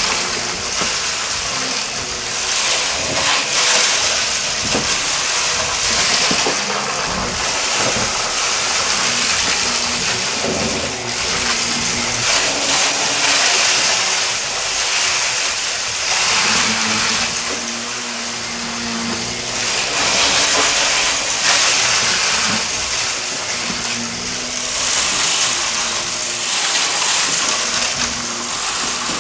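Shark vacuum cleaner running on carpet, a steady loud hiss with a faint motor hum underneath. The sound swells and eases every few seconds, with scattered short crackles of debris being sucked up.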